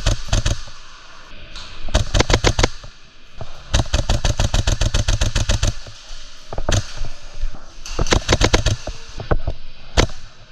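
Novritsch SSQ4 HPA airsoft rifle firing in rapid bursts: two shots, a burst of about seven, then a long burst of about two seconds at roughly ten shots a second, followed by shorter bursts and a single shot near the end.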